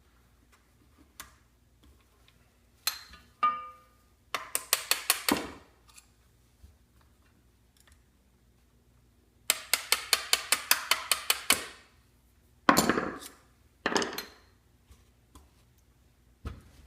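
Small hammer tapping a steel pin punch to drive the trigger-group pins out of a Remington 11-87 shotgun receiver: two quick runs of ringing metal taps at about seven a second, the second run longer, with a few single knocks and clinks between them.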